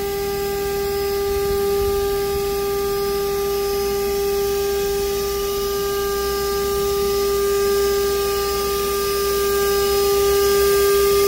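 Heliner CNC router spindle running at maximum RPM with an 8 mm tool fitted: a steady high-pitched whine with overtones, growing louder near the end as it is approached.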